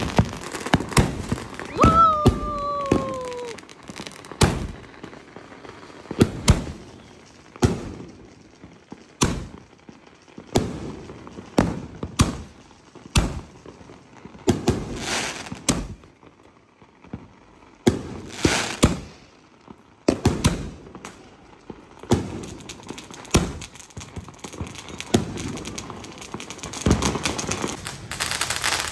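Fireworks and firecrackers going off: sharp bangs at irregular intervals, one every second or so, with a falling whistle about two seconds in and a dense crackling near the end.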